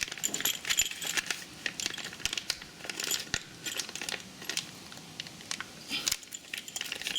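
Light metal clinking and jangling, many small irregular clicks, as a short steel deck-height chain and small parts are handled.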